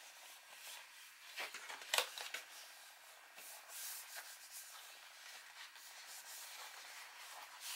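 Faint rubbing of hands sliding and pressing on sheets of white card, with two light taps about one and a half and two seconds in.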